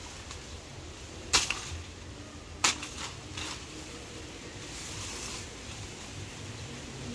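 Two sharp chopping strikes about a second and a half apart, a machete hacking at banana plant material, followed a couple of seconds later by a softer rustle of banana leaves.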